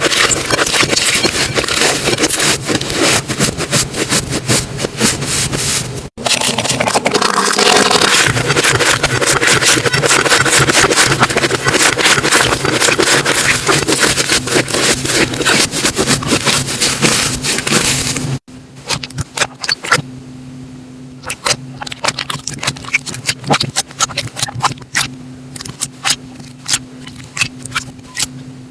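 Slime being squeezed and worked by hand, giving a dense run of crackling and popping. After an abrupt cut about two thirds of the way in, the pops turn sparser and more separate, over a low steady hum.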